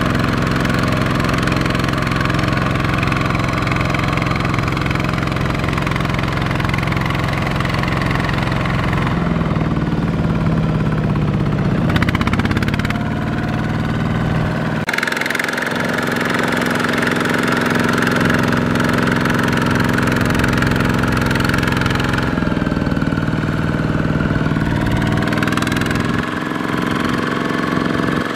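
Kubota ZT120 walk-behind tractor's single-cylinder diesel engine running hard as it drags a loaded trailer through deep mud, its engine speed rising and falling. The engine sound changes abruptly a few times.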